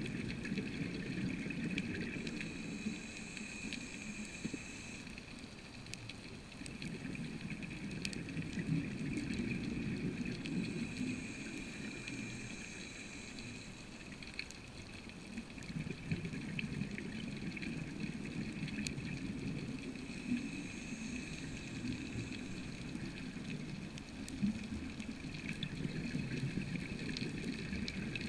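Underwater sound of a scuba diver breathing: a hiss from the regulator alternates with bubbling and gurgling exhalations, in slow cycles about nine seconds apart.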